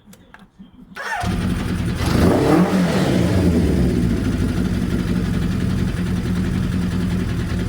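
Kawasaki GPZ900R's inline-four engine starting about a second in, revving briefly, then settling to a steady idle; it runs again after a carb clean and new wiring harness.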